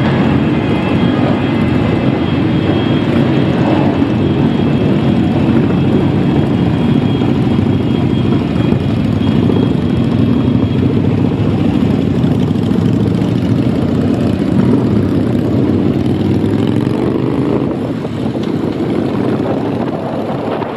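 A column of cruiser motorcycles riding in procession, their engines running loud and steady. Near the end an engine revs up, pitch rising.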